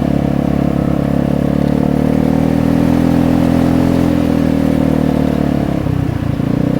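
Vespa 250 GTS scooter's single-cylinder four-stroke engine running under way through its loud exhaust. The note rises gently, then eases off, and dips briefly about six seconds in before picking up again.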